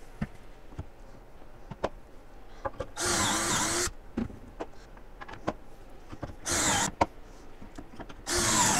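Cordless drill boring pocket holes through a pocket-hole jig into a pine shelf board: three short runs, each under a second, the motor's pitch dipping as the stepped bit bites into the wood. Clicks and knocks sound between the runs.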